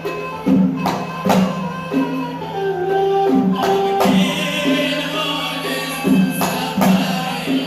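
Traditional Hadhrami Yemeni ṣawt music: sharp percussion strikes over a held low note and a melodic line of pitched notes.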